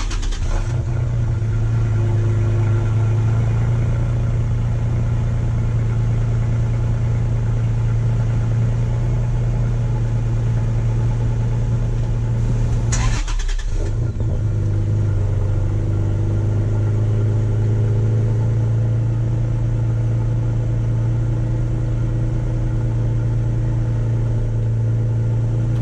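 Toyota Tacoma pickup's engine running steadily through its exhaust, fitted with a new stainless steel muffler tip. The sound breaks off briefly with a click about halfway, then picks up again.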